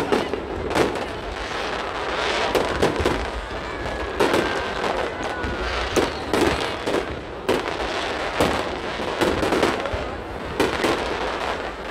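Aerial fireworks display: a steady run of irregular bangs and crackling bursts, roughly one to two a second.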